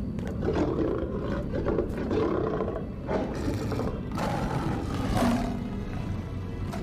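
Lions roaring, several roars one after another, as sound effects in an animated film's soundtrack.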